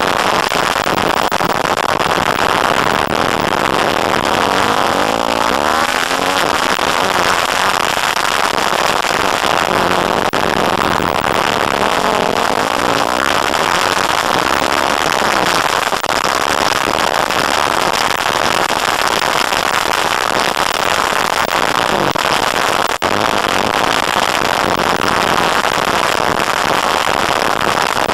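Dirt bike engine revving up and down under hard riding, the revs rising and falling most plainly about five seconds in and again around thirteen seconds, under a heavy steady rushing noise on the bike-mounted camera's microphone.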